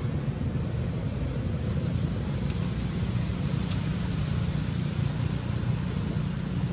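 Steady low rumble with a hiss over it and no calls, typical of outdoor background noise on the microphone.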